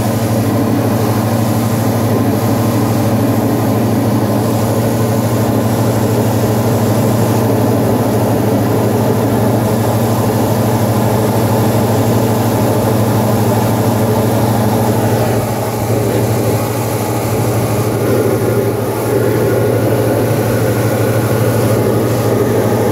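Single-engine light aircraft's piston engine and propeller droning steadily, heard from inside the cockpit. The drone dips a little in loudness for a few seconds past the middle.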